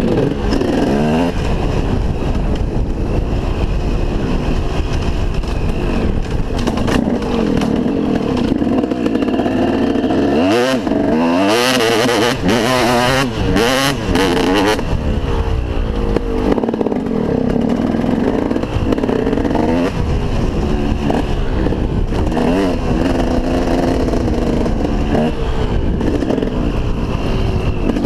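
KTM SX 250 two-stroke single-cylinder motocross engine revving up and down over and over as the bike is ridden hard on dirt, rising to its highest revs about halfway through. Wind rumbles on the helmet-mounted microphone.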